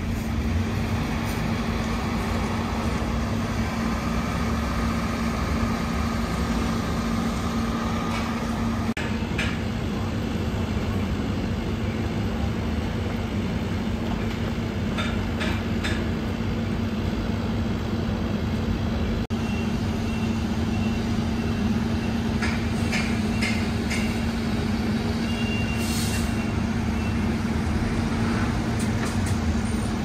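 Steady street-traffic noise with a constant low engine-like hum and rumble, and a few light clicks and ticks scattered through it.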